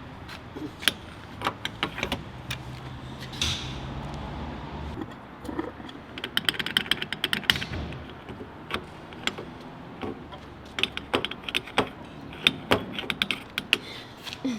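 Irregular sharp clicks and light clatters of small hard objects being handled, some in quick runs, over a faint steady low hum.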